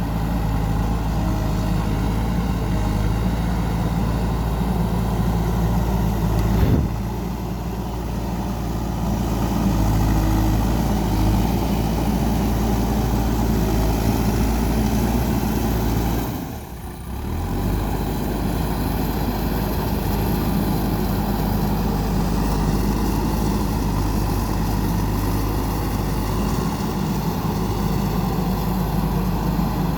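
JCB 3DX backhoe loader's diesel engine running steadily while it works, with one sharp knock about seven seconds in and a short drop in level about seventeen seconds in.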